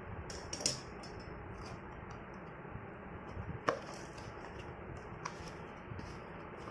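Small cardboard box being handled and opened by hand: a few scattered clicks and light rustles of the flaps, the sharpest click about three and a half seconds in, over a steady faint hiss.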